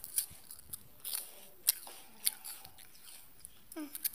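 A pit bull crunching a wafer biscuit: a handful of sharp, crisp crunches at irregular intervals.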